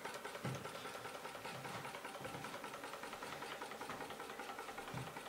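Small water-cooled DMF Stirling hot-air engine running steadily, its crank and linkage giving a rapid, even mechanical ticking.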